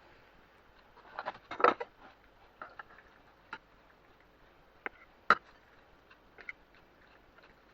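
Serving spoon clinking and scraping against a casserole dish and plates as pasta bake is dished up: a cluster of knocks about a second and a half in, one sharp knock a little after five seconds, and scattered lighter taps.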